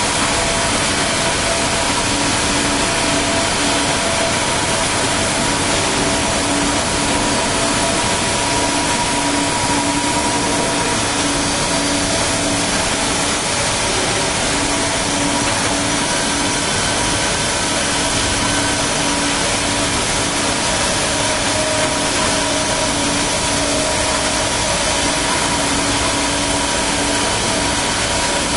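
Cutting torch on a Kaltenbach WBZ 1500 plate drilling and profiling machine cutting steel plate: a loud, steady hiss with a constant machine hum and whine beneath it.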